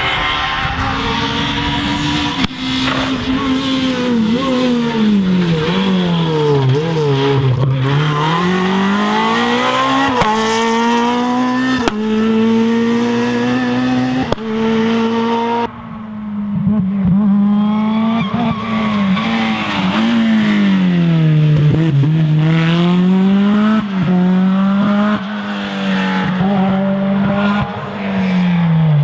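Rally car engines running hard at high revs. The engine note falls and climbs again as the cars brake and accelerate, with a deep dip about a quarter of the way in and another about three quarters through. The sound changes abruptly several times as one car follows another.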